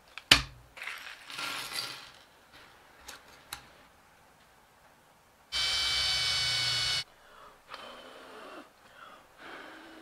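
A cordless drill runs steadily for about a second and a half in the middle, boring a small hole into a poplar wood block. A sharp click comes near the start, and quieter handling knocks come before and after.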